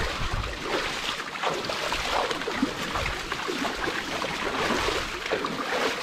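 Shallow creek water sloshing and splashing: a steady rough wash of noise broken by many small irregular splashes.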